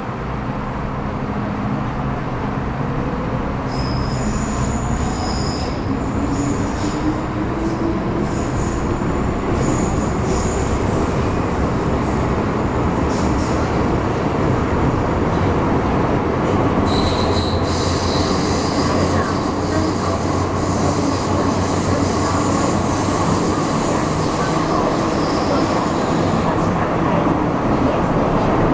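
Onboard sound of an MTR Metro-Cammell Urban Line EMU motor car running between stations. The traction motor whine rises in pitch over the first ten seconds or so as the train picks up speed, over a steady rumble of wheels on rail. High wheel squeals come in about four seconds in and again around the middle.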